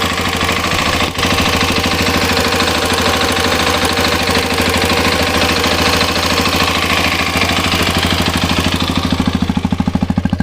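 Hero Xpulse 210's single-cylinder engine idling with a metallic tappet clatter from the cylinder head, which the owner calls a tractor sound. The service centre blames a defective engine head. The upper clatter thins out about nine seconds in.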